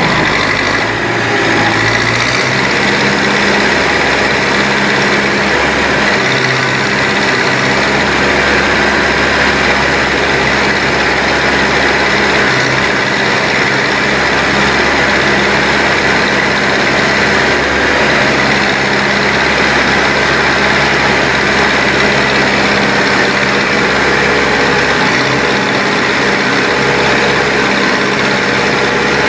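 Backhoe loader's diesel engine running steadily while working, its pitch shifting slightly a couple of times early on.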